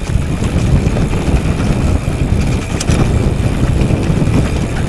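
Wind buffeting the helmet or handlebar camera's microphone and the rumble of a mountain bike riding fast off-road, with a few sharp rattles. It rises suddenly at the start and stays loud.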